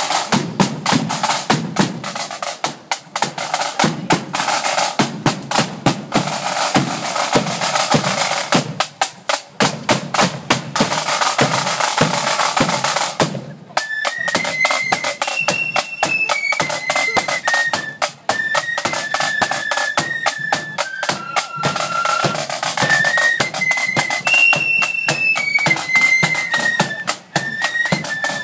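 Marching band drums: snare drums and a bass drum beating a fast march rhythm with rolls. About halfway through, after a brief pause, the flutes come in with a high melody over the drums.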